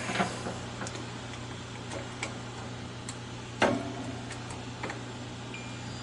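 Multimeter probes clicking faintly against the cold control's terminals, one click sharper than the rest a bit past halfway. Near the end the meter's continuity beeper starts a steady high tone, the sign that the thermostat's switch is closed and reads zero ohms. A low steady hum runs underneath.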